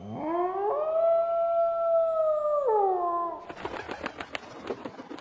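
A single wolf howl that rises, holds one long steady note, then falls away about three seconds in. A quicker, quieter run of crackling clicks follows to the end.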